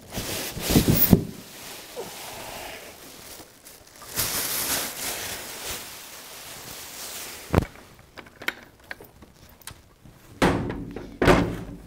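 Plastic packaging bag rustling as a miter saw is lifted out of its box and the bag pulled off, with a sharp knock about two thirds through and heavier thunks near the end as the saw is handled and set down on a bench.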